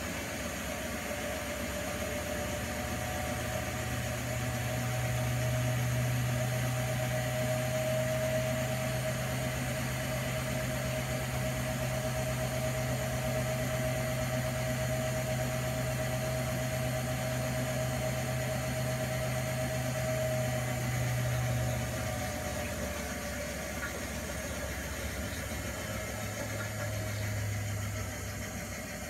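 Primus P6 commercial washing machine in a 95 °C boil wash, its motor turning the drum with a steady low hum for about twenty seconds. It stops, then runs again briefly near the end.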